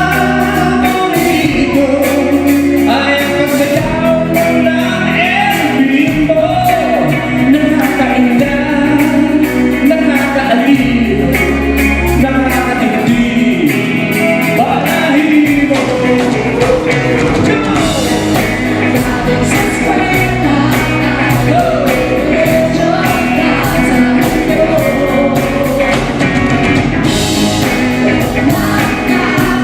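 Live band playing a pop-rock song with a lead vocalist singing over it.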